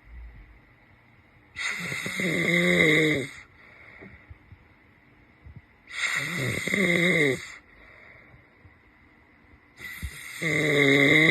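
A man snoring loudly in his sleep: three long snores about four seconds apart, each with a wavering pitched tone, with quieter breathing between them.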